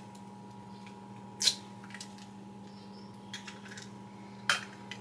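Eggs being handled and knocked against a mixing bowl: two sharp cracks about three seconds apart, with a few faint clicks between them, over a steady low hum.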